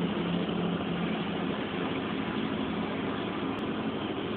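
Steady drone of a vehicle in motion heard from inside the cab: a low engine hum with road noise, holding level.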